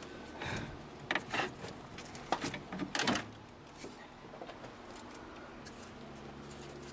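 Hand tools clinking and knocking against metal while a ratchet wrench works on a bolt of the heater blower motor in the engine bay. A cluster of sharp clicks and knocks in the first three seconds, then only a few faint ticks.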